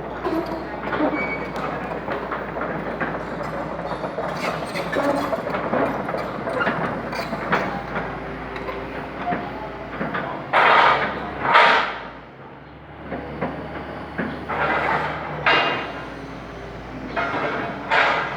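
Metalwork on an excavator chassis: continuous clattering and scraping of metal, broken by a few louder bursts of harsh noise, two close together about halfway through and more near the end.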